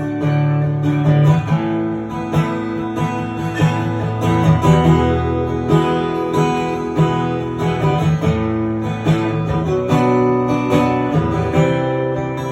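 Live country song on guitar, strummed chords in an instrumental break with no singing.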